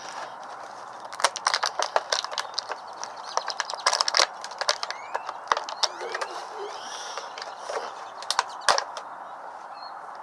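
Plastic toy packaging being worked open by hand to free an action figure: irregular sharp plastic clicks and crackles, in clusters with short pauses between.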